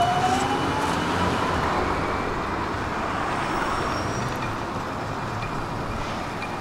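Siemens Combino tram pulling away, the whine of its traction motors rising in pitch over the first second or so as it speeds up. The whine fades into steady street traffic noise.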